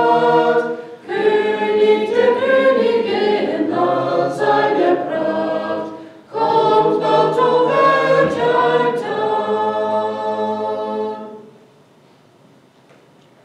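A small mixed group of men's and women's voices singing a hymn unaccompanied, with short breath pauses about a second in and around six seconds in. The hymn ends about eleven and a half seconds in, leaving faint room tone.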